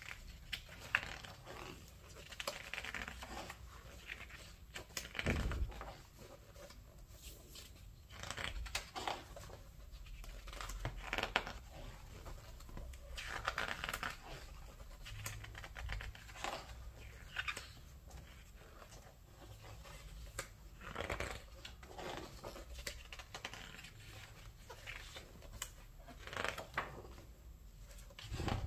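Pages of a large hardback art book turned by hand one after another: paper rustling and swishing as each page lifts and falls, with soft taps as it settles and hands brush the paper flat.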